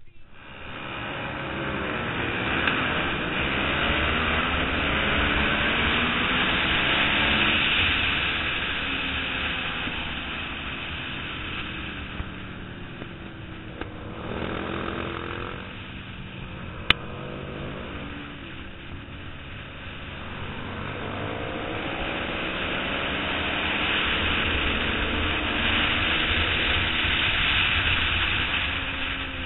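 Suzuki SV650's 90-degree V-twin engine at race speed, heard from a camera mounted on the bike with wind noise over the microphone. Its revs climb and fall with gear changes and ease off twice around the middle. There is one sharp click a little past halfway.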